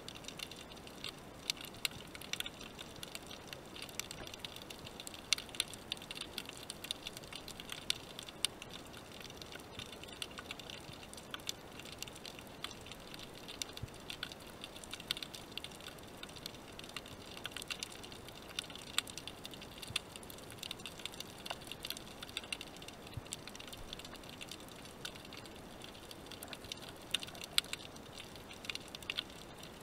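Underwater crackling heard through a submerged camera: a dense, irregular patter of tiny clicks, the reef noise of snapping shrimp.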